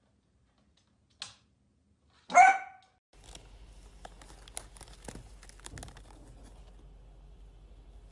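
A brief sharp click, then one loud, sharp bark from a small dog. From about three seconds in, a crinkly packet rustles and crackles in quick irregular bursts as a cat pushes its head into it.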